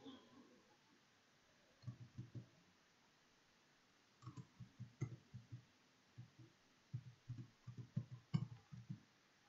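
Computer keyboard being typed on: faint key taps in three runs, the last the longest.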